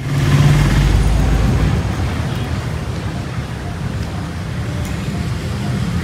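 Steady outdoor road and traffic noise: a low rumble with a hiss over it, heaviest in the first second or so.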